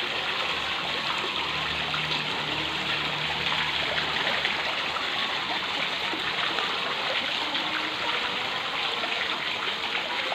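Water splashing and churning steadily as a dense crowd of catfish thrash at the surface, feeding.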